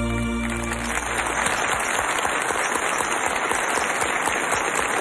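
Studio audience applauding, the clapping swelling in as the song's last held chord dies away within the first second.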